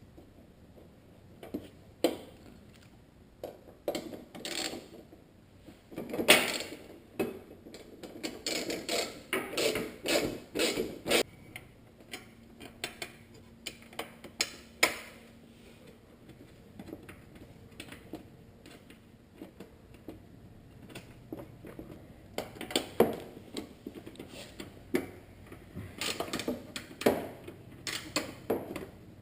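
Irregular clicks, knocks and rattling of hand tools and plastic parts being worked, with a busier run of quick clattering about a third of the way in and again near the end, as a headlight assembly is fitted into a car.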